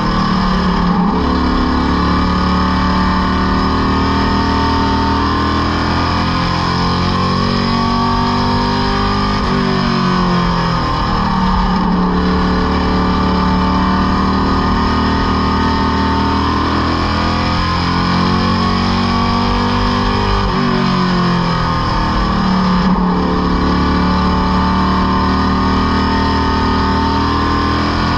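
Superstock race car's engine at full race pace, heard from inside the cockpit. The revs fall and climb back up three times, about eleven seconds apart, as the car lifts for the turns and accelerates onto the straights.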